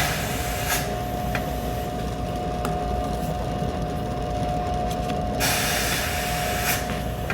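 Print-shop press running with a steady hum and a thin, even whine, broken twice by a loud hiss lasting about a second and a half: once at the start and again about five and a half seconds in.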